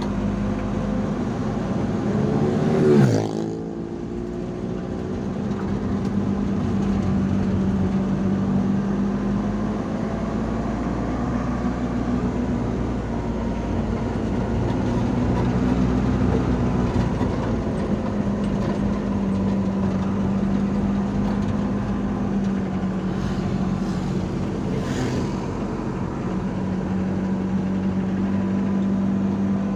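Steady engine drone of vehicles driving along a road. About three seconds in, a vehicle passes close by, its sound sweeping down in pitch as it goes past.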